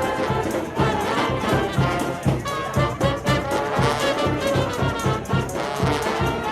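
Brass band music: trumpets and trombones playing held notes over a steady beat.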